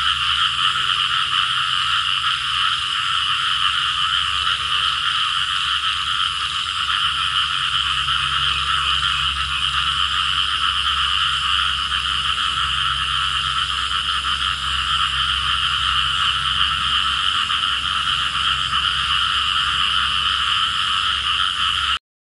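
Dense, steady chorus of many frogs calling, with a faint low rumble underneath; it cuts off suddenly near the end.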